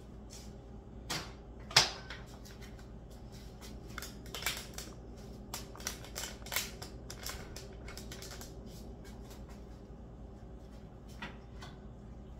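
Cookware and utensils clinking and knocking on a stovetop as cream sauce is moved from a skillet into a pot of fettuccine: one loud knock about two seconds in, then a quick run of light clicks and taps, and a few more taps near the end.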